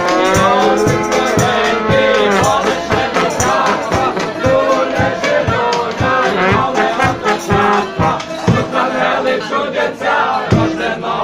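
A group of carolers singing a Ukrainian koliadka (Christmas carol) together over a steady drumbeat, with a rattle shaken along.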